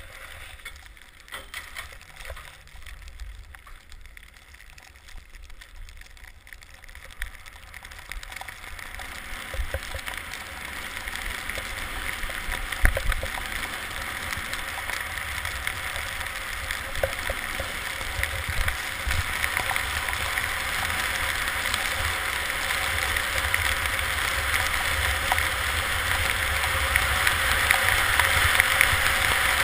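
Skis running straight downhill on packed snow in a tuck: the hiss of the skis on snow and wind buffeting the microphone, growing steadily louder as speed builds from about eight seconds in. One sharp knock near the middle.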